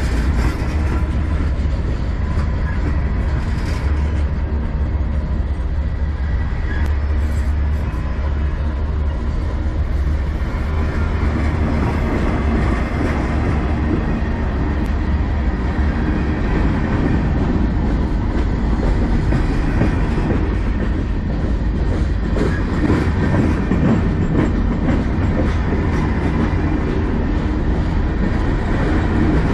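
Freight train cars (tank cars, boxcars and covered hoppers of a CN manifest train) rolling past close by: a steady, loud rumble of steel wheels on the rails.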